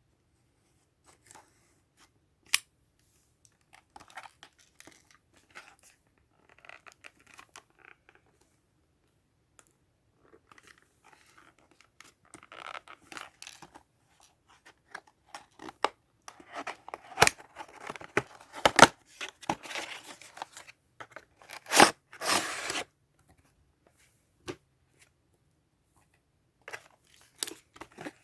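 Toy packaging being opened by hand: crackly tearing and cutting of tape, cardboard and plastic with sharp clicks of handling, coming in bouts and loudest in a long tearing stretch past the middle.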